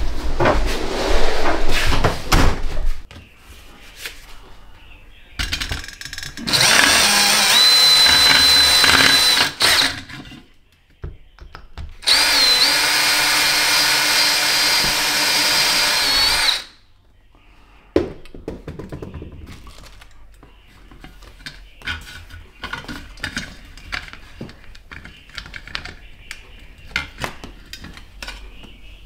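DeWalt cordless drill running in two long bursts of about three and four seconds, a couple of seconds apart, with a steady motor whine. Knocks and clatter of handling come before the drilling, and light taps and handling follow it.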